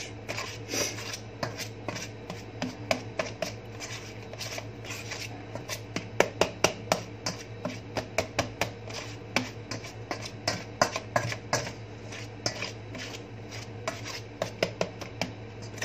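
Pastry blender cutting cold margarine into flour in a mixing bowl: many irregular clicks and scrapes as the blades strike and drag through the mixture and against the bowl. This is the stage of working the fat into pea-sized pieces for pie crust.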